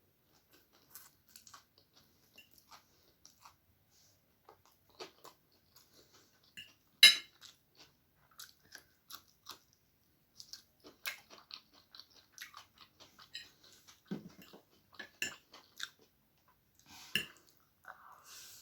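Close-up chewing and crunching of someone eating egg chow mein noodles, with scattered short, wet mouth clicks. One much louder sharp click comes about seven seconds in, and the clicks grow denser in the second half.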